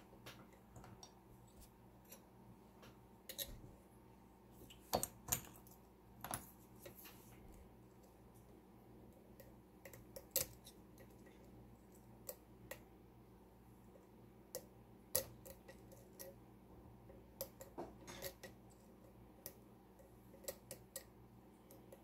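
Faint, irregular metallic clicks and ticks from a lock pick and tension wrench working the pins of a Mul-T-Lock MT5+ high-security cylinder, roughly one click every second or so.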